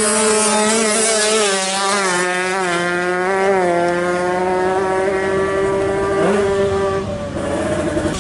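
Two-stroke Kawasaki Ninja 155 drag bike engine held at high revs, its pitch nearly steady with small wobbles, then dropping away about seven seconds in. A short rising rev blip comes just before the drop.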